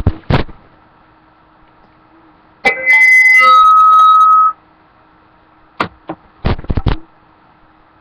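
A loud electronic keyboard-like tone lasting about two seconds, several pitches at once settling onto one held note that steps down partway. A few sharp thumps come shortly after the start and again near the end.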